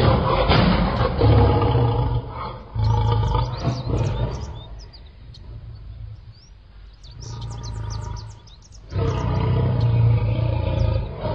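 Lion roaring, a run of loud, deep roars that drops to a quieter stretch midway and returns strongly near the end, with high bird chirps over it.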